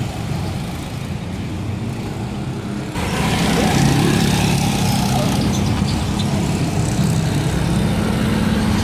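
Go-kart engine running steadily, growing louder about three seconds in.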